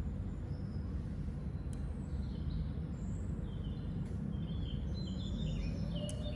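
Small birds chirping over a steady low rumble of background noise: short, mostly falling chirps that come more often after about two seconds in, with a few faint clicks.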